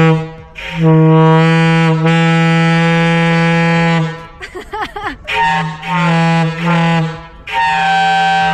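Homemade PVC horn for a bus sounding in blasts of one deep, steady note: a short blast, a long one of about three seconds, then several shorter blasts. It sounds really loud.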